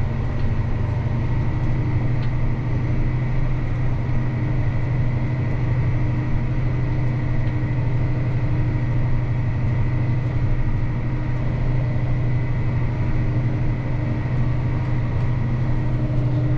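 Tractor engine running at a steady speed while pulling a planter across the field: an even low drone with a faint constant high whine above it.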